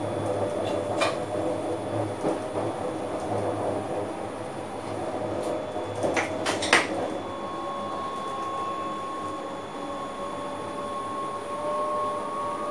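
Cab interior noise of an NS Sprinter Lighttrain (SLT) electric train running over the switches of a station throat: a steady rumble with a few sharp clicks about a second in and again around six and a half seconds in. A thin steady squealing tone comes in about seven seconds in and grows toward the end.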